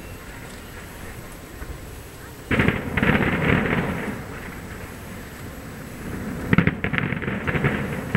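Aerial fireworks bursting in the distance: two volleys of bangs and crackling, one about two and a half seconds in and another from well past the middle to the end.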